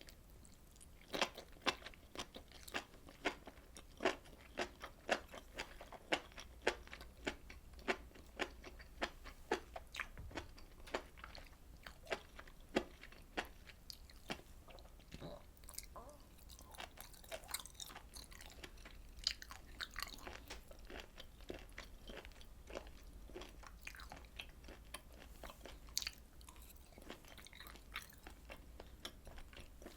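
Close-miked chewing of grilled beef and pork intestines (daechang and makchang): a run of sharp mouth clicks, about two a second for the first half, sparser after.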